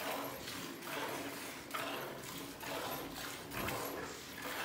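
Milk squirting in quick hissing jets into a steel bowl as a cow is hand-milked, about two squirts a second.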